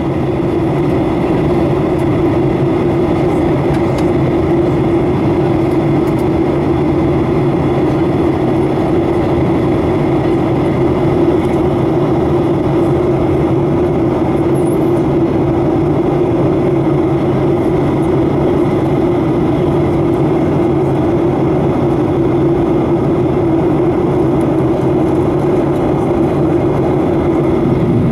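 Steady cabin noise of a Boeing 737-800 in flight, heard beside the wing: the CFM56-7B turbofan engines running with a constant low hum under the rush of air past the fuselage.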